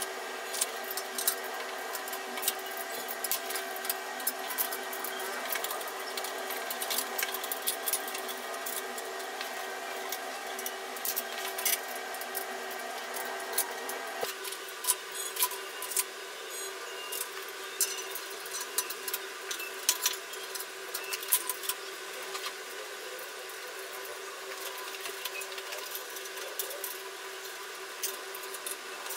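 Irregular small metal clicks and clinks of bolts, nuts and tools being handled as brackets are fastened by hand to a metal table leg, over a steady hum that changes about halfway through.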